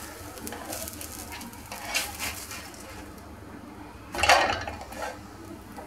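Plastic spatula scraping along a nonstick frying pan and under a metal ring mould as it lifts the mould out, with light scrapes and clinks and a louder clatter about four seconds in.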